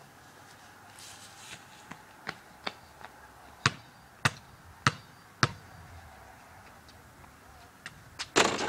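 A basketball is dribbled on a concrete driveway: a few light bounces, then four hard, evenly spaced bounces about half a second apart. Near the end there is a short burst of noise as the free throw reaches the hoop.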